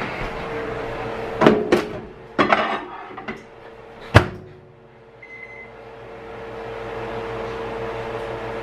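A microwave oven in use. Knocks and rattles of a dish going in are followed by a sharp knock a little after four seconds, as the door shuts. Over a steady hum there is a faint short beep.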